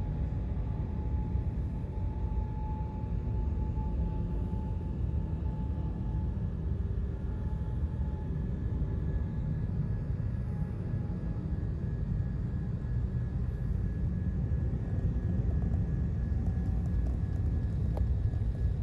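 Airbus A350-941's Rolls-Royce Trent XWB jet engines at takeoff thrust during its takeoff roll, heard across the airfield as a steady low rumble, with a faint high whine in the first few seconds.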